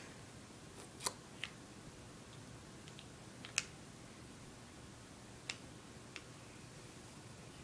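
A handful of faint, scattered clicks and taps from a small plastic eyeshadow compact being handled.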